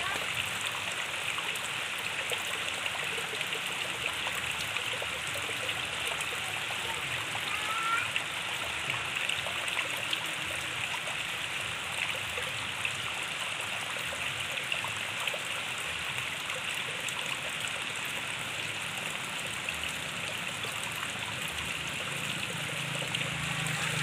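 Water spilling over an earth bank in many small streams and trickling and splashing into a shallow stream below: a steady, even flow.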